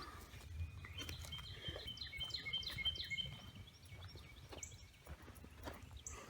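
A songbird singing a quick run of repeated high chirps for about two seconds, starting about a second in, over a faint low rumble and a few scattered clicks.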